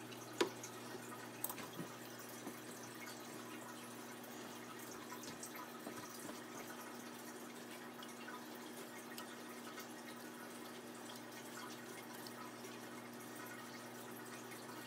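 Hot bacon faintly sizzling and crackling on metal baking trays over a steady low hum, with a few light clicks in the first two seconds as the strips are handled.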